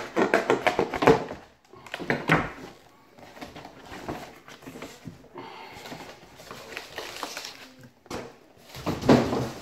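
Cardboard box and packaging being handled: scraping, rustling and knocking of cardboard as a large box is lifted apart and its contents pulled out, with a loud burst of scraping near the end.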